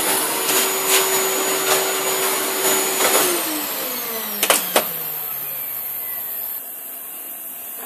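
Shop vacuum motor running steadily, then switched off about three seconds in, its hum and whine falling in pitch as it winds down. Two sharp clicks come about a second and a half after the switch-off.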